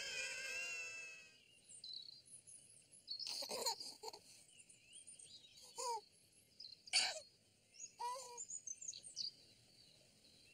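Children's excited voices fade out in the first second or so, then birds chirping and twittering, broken by a few brief louder calls.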